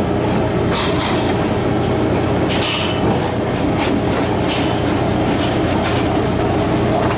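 Steady, loud machinery hum, overlaid by a few brief scrapes and rattles of metal being handled about one, three and four seconds in.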